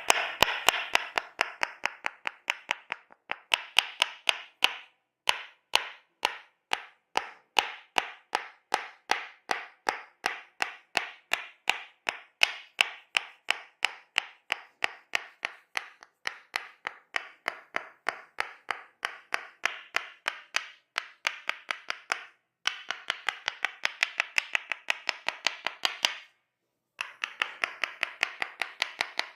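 Wooden Tok Sen mallet tapping a wooden wedge in a fast, even rhythm of about three sharp knocks a second, with two short breaks late on.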